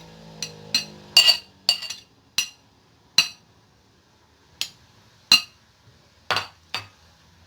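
Spoon clinking against a dish while grated turnip is put into a bowl: about a dozen short, ringing clinks at uneven intervals.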